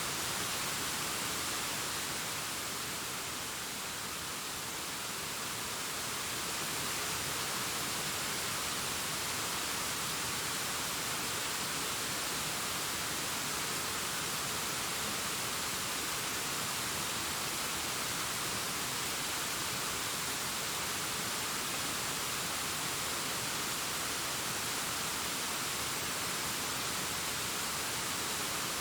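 Distant waterfall cascading down a rockface: a steady rushing hiss, strongest in the high range, easing slightly a few seconds in before holding steady.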